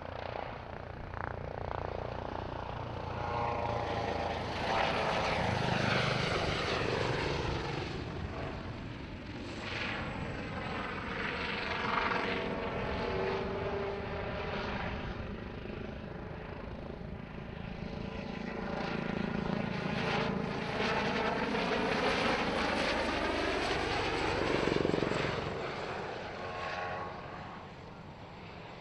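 Airbus H145M helicopter, with twin Arriel 2E turboshaft engines, flying display passes: rotor and turbine noise swells and fades several times, with a sweeping, phasing change in tone as it passes close. It is loudest just before the end, then dies away.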